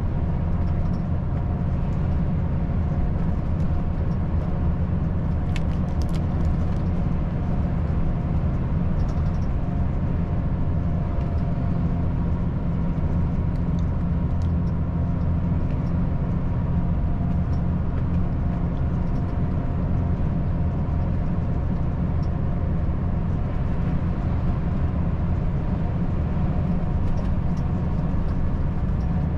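Volvo FH540 truck's 13-litre inline-six diesel engine running steadily at highway cruise, with road and tyre noise, a low, even drone throughout.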